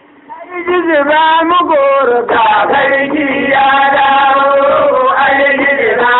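Hausa traditional praise singing: a man's voice chanting a melody with long held, bending notes. It comes in after a brief pause right at the start.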